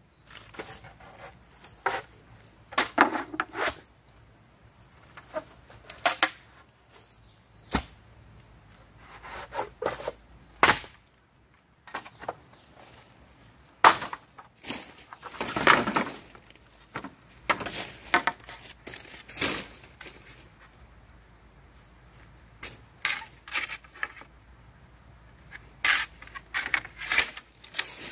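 Sharp knocks and cracks of bamboo being cut and handled, coming at uneven intervals, with a longer rustling crash about halfway through. A steady high-pitched insect drone runs underneath.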